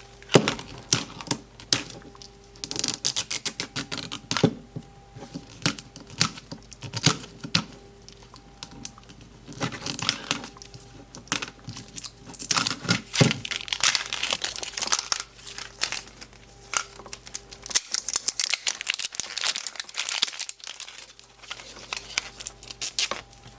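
Plastic wrapping crinkling and tearing as a Mini Brands toy capsule is opened by hand, in irregular crackles and rips.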